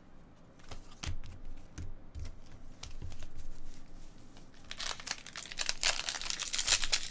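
A few light taps and clicks of cards being handled, then, from about five seconds in, a trading-card pack wrapper crinkling and tearing as it is opened.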